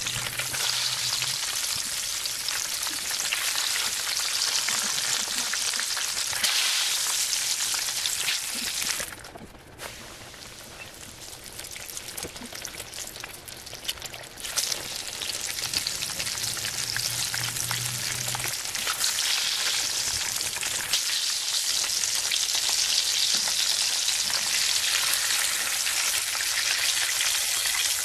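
Battered chicken breast shallow-frying in hot oil in a pan: a steady, crackling sizzle. It grows quieter for about five seconds a third of the way in, then picks up again.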